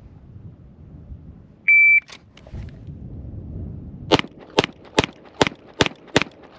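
A shot timer beeps once, then about two and a half seconds later a Springfield Armory Prodigy 9mm pistol fires six quick shots a little under half a second apart: a six-round Bill drill string.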